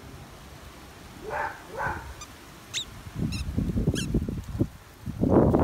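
Squeaky plush dog toy being chewed by a dog: two drawn-out, honk-like squeaks, then a few short high squeaks, over low rustling. A loud rush of rustling comes in near the end.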